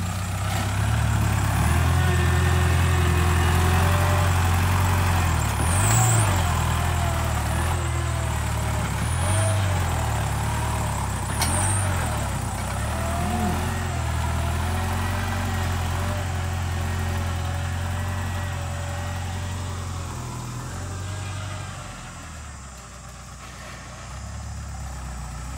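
New Holland TS90 tractor's diesel engine running under load as the tractor pushes earth with its front blade. The engine sound grows fainter near the end as the tractor moves off.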